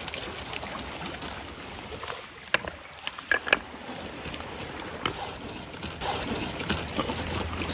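Small waves lapping on a stony lakeshore, with a few sharp knocks a couple of seconds in.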